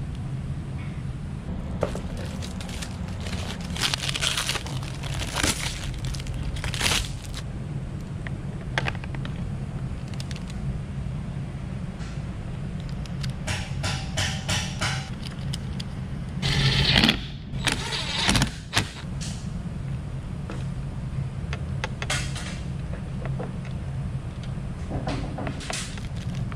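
Hands working on motorcycle handlebar parts: scattered clicks, knocks and rustling, with a quick run of clicks about halfway through and the loudest rustling bursts a little after, over a steady low hum.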